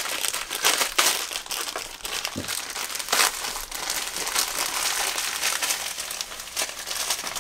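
Plastic wrapping crinkling and crackling in the hands as vinyl collectible figures are unwrapped, with irregular crackles throughout.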